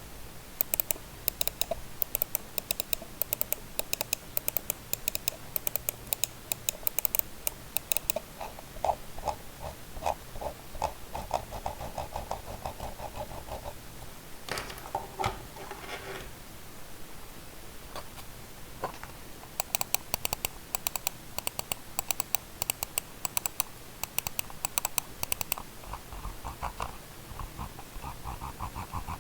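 Budget computer mouse buttons clicked rapidly over and over in two long runs. Between them, and near the end, come runs of softer, lower ticks from the scroll wheel being rolled notch by notch.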